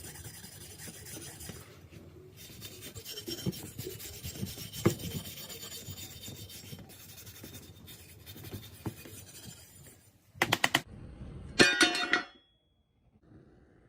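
Steady hand filing and rubbing on the old axe head's metal, with a short pause now and then. Near the end come two louder, sharper bursts, the second with a metallic ring.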